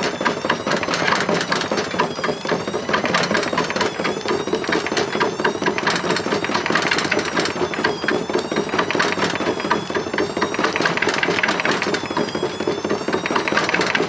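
Burning washing machine drum turning slowly, with dense crackling and clattering from the fire and the loose, breaking parts. A thin squeal rises and falls every couple of seconds: the hot drum chafing and rubbing as it turns, which the owner takes for it starting to seize up.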